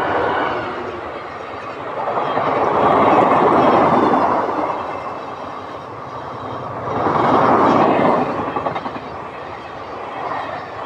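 Express passenger train coaches passing close at speed, their wheels running over the rails in a steady rumble. The sound swells louder twice and fades between.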